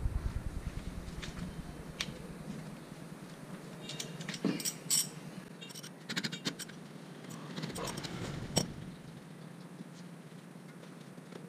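Metal hand tools clinking and a wrench clicking on a Nissan Frontier's front brake caliper as it is being unbolted, the leaking caliper coming off to be rebuilt with new seals and piston. The clinks come singly and in short clusters, loudest about four to five seconds in and again near eight and a half seconds.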